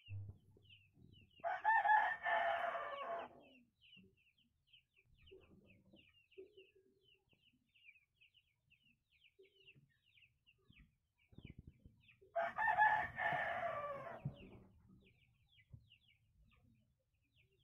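Fighting-breed rooster crowing twice, each crow about two seconds long and trailing down in pitch at the end. A faint high chirp repeats about twice a second in the background.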